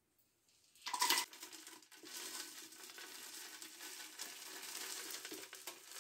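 Roasted, shelled cacao beans poured from a bowl into a plastic blender jar: a loud clatter about a second in, then a steady dry rattle as the beans keep sliding in.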